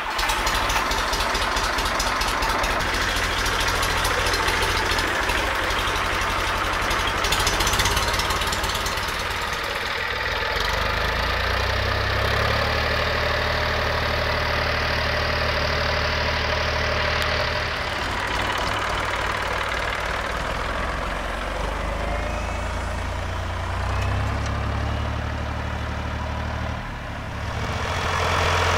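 1967 IHC 423 tractor's diesel engine running, mostly at a steady idle, its note shifting a few times as the tractor is moved about.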